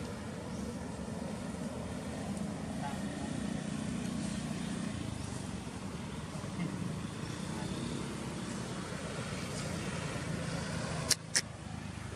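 Steady outdoor background rumble with indistinct voices, and two sharp clicks close together about a second before the end.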